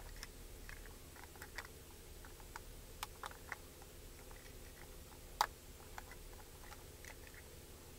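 Scattered light plastic clicks and taps from a DJI Mini 2 drone and its propeller guard being handled and packed away, with one sharper click about five and a half seconds in, over a faint steady low hum.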